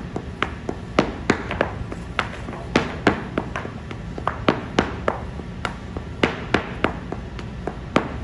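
Heeled dance shoes striking an OSB practice board in stepping footwork: a run of sharp taps and stamps, two or three a second, some louder than others.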